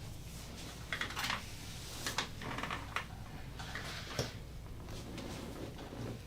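Scattered soft clicks and rustling, as of hands, fabric and equipment being handled, over a low steady hum.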